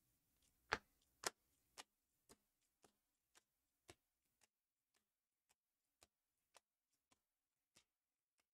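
Faint regular ticking, about two ticks a second. The first couple of ticks are the loudest, the next few fade, and after that it comes only now and then on the same beat.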